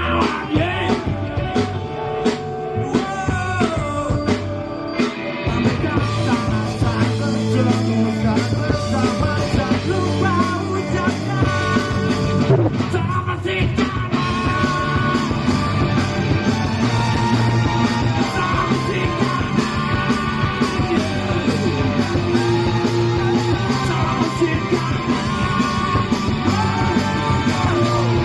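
Rock band playing live with a singer: electric guitars, bass and drums under shouted, punk-style vocals.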